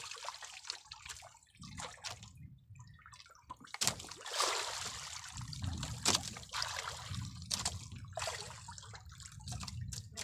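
Sea water splashing and dripping in irregular bursts as a wet fishing hand line is pulled in hand over hand with a fish on it.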